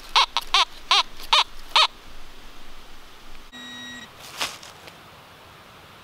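Fisher F19 metal detector giving its target tone five times in quick succession as the coil is swept back and forth over a buried target. A short steady beep follows about three and a half seconds in, then a single knock.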